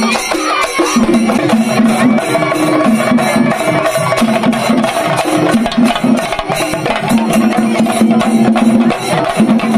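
Loud festival music driven by fast, dense drumming, with a sustained melody that switches back and forth between a few low held notes.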